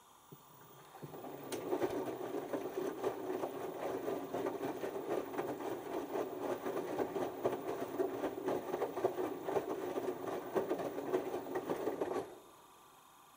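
LG TurboWash 6 Motion front-loading washing machine's drum turning during the first rinse, tumbling wet laundry and water with a dense mechanical churning. It starts about a second in and stops abruptly near the end.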